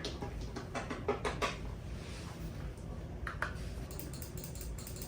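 Typing on a computer keyboard: a quick run of keystrokes about a second in, then a few scattered taps.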